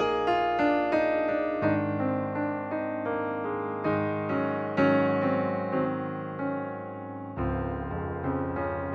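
Background music: a gentle piano tune, with notes struck one after another and fading.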